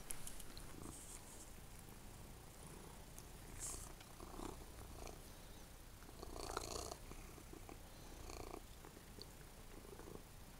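Domestic cat purring steadily, very close to the microphone, with a few brief rustling noises, the loudest about six and a half seconds in.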